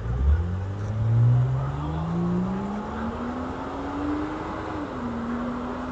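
A car accelerating hard as it pulls away. The engine note climbs steadily for about four and a half seconds, then drops a little and holds steady.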